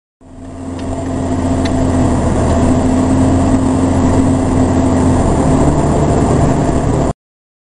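Car engine and road noise heard from inside a moving car: a steady hum that fades in over the first couple of seconds and cuts off suddenly about seven seconds in.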